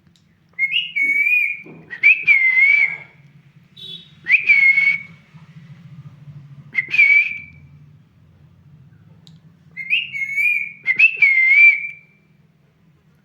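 Pet parrot whistling: about six short, warbling whistles near one pitch, each under a second long. They come in two pairs at the start and end, with single whistles between, over a faint steady low hum.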